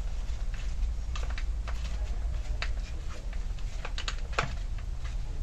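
Screwdriver backing screws out of a chainsaw's plastic top cover: irregular small clicks and ticks of tool, screw and housing, over a low steady hum.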